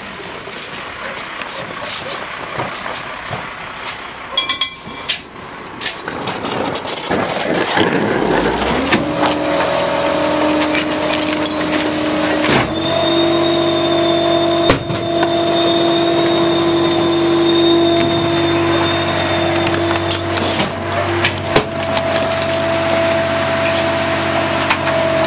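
Rear-loader garbage truck working a pickup: a few knocks and clatters, then about eight seconds in the engine revs up and holds a loud steady speed with a thin high whine, driving the hydraulic packer. The pitch steps up and down a couple of times as the packer cycles.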